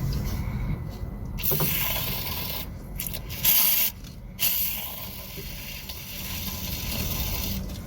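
Aerosol spray cleaner hissing in several bursts, with short breaks, as it washes caked dirt off diesel engine parts. A low steady hum runs underneath.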